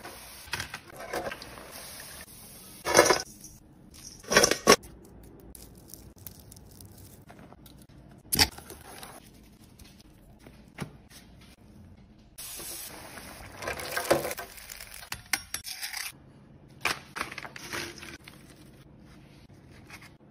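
Hot oil sizzling in a deep fryer as potato chips go in for their first fry, then a series of sharp knocks and clatters of kitchen work, with another stretch of hiss and clicks later on.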